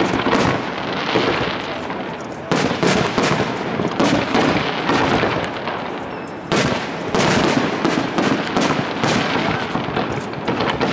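Aerial firework shells bursting in quick succession: repeated sharp bangs, each trailed by dense crackling. Fresh volleys come about two and a half, four, six and a half and seven seconds in.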